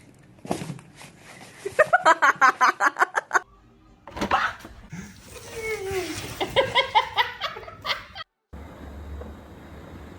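People laughing in rapid ha-ha bursts, a run of about a second and a half, then another after a short pause.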